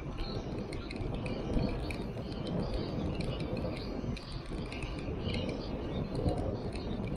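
Wind rushing over a DJI Osmo Action camera's microphone on a moving bicycle, heard as a steady low rumble despite the camera's wind reduction, with birds chirping faintly behind it.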